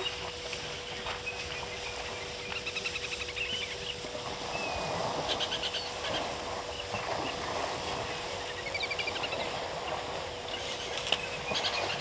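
Wild birds calling in short, quick chirping trills several times, over the rustle of an elephant herd moving through tall dry grass, with a faint steady hum underneath.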